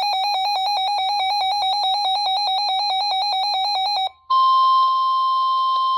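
A weather radio's alert alarm beeps rapidly for about four seconds. After a short break comes the steady NOAA Weather Radio 1050 Hz warning tone over radio static, which signals that a warning message is about to be broadcast.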